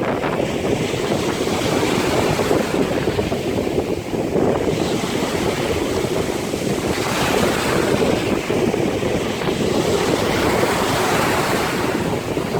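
Waves and surf rushing, with wind blowing across the microphone, in a steady loud roar that swells and eases every few seconds.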